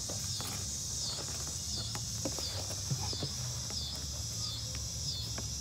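Steady high-pitched insect chorus, pulsing slightly faster than once a second, over a low steady hum. A few soft clicks come from a hand moving through soil and dry sticks.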